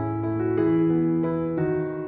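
Background music played on a keyboard: a melody of held notes over a low bass note, changing about every half second.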